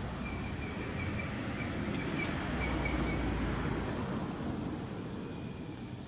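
Outdoor background noise: a steady low rumble that swells and fades around the middle, with a run of short, faint, high chirps at one pitch during the first three seconds.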